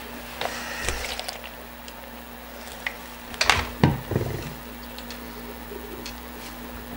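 Handling sounds of work on a 5.25-inch floppy drive's metal eject mechanism with a cotton swab: soft scraping and rubbing about a second in, then two sharp knocks about half a second apart near the middle, over a steady low hum.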